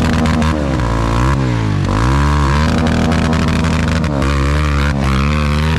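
Off-road enduro motorcycle engine revving hard. Its pitch dips and climbs back several times, with some knocks and clatter over it.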